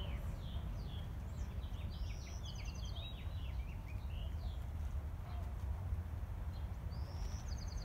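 A songbird singing: a rising whistle, then a fast trill of repeated high notes and a tumble of falling notes, about two seconds in and again near the end. Under it runs a steady low rumble.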